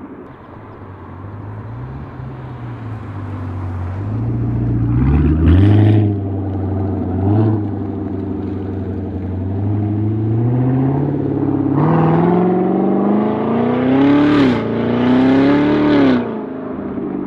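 Corvette C7 Z06's supercharged 6.2-litre V8 running through a 3.5-inch valved straight-pipe exhaust, revving up and dropping back several times. It builds from a low, steady note to its highest, loudest climbs near the end, each cut off by a quick fall in pitch.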